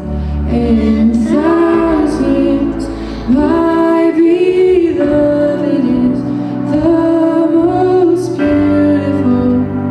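Worship song: a woman singing slow, sustained phrases over a steady instrumental backing.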